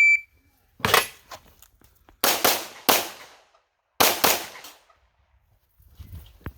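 A short high electronic start beep, then about six pistol shots in uneven groups: one about a second in, a quick pair and a single shot a second later, and another quick pair about four seconds in.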